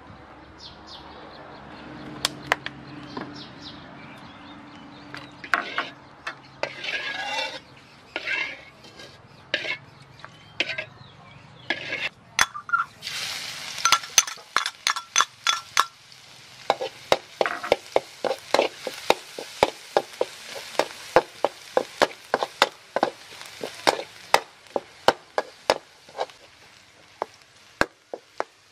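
Oil heating in a steel wok, then chopped garlic tipped in about halfway through and sizzling. After that a metal spatula scrapes and clinks against the wok, about two strokes a second, as the garlic is stir-fried.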